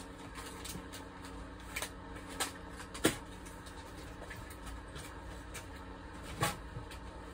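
A few scattered light clicks and knocks, the loudest about three seconds in and another near the end, over a steady low hum.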